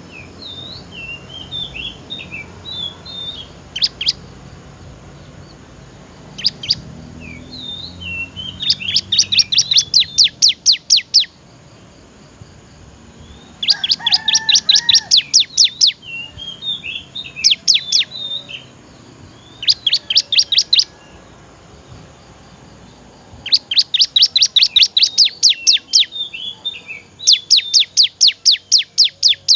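Ciblek (prinia) singing: fast trains of sharp, high chip notes, about six a second, in bursts of one to three seconds, between short warbling twitters.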